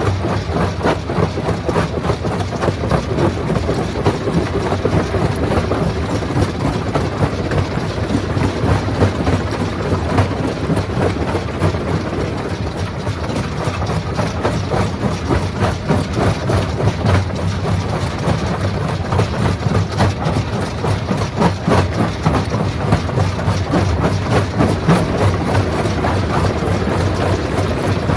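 Rock crushing machine running under load: a steady heavy drone with dense, irregular clattering and knocking of stone being broken.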